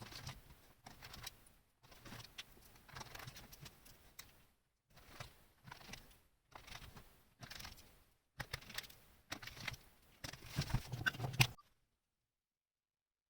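Light, irregular clicking and rattling of small plastic and metal parts being handled, as a Commodore 64 keyboard is put back together. The sound cuts off abruptly to dead silence shortly before the end.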